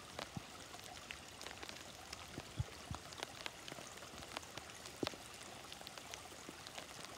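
A thin trickle of water running and splashing over a mossy rock ledge into a shallow muddy stream: a soft steady rush with irregular drips and plinks.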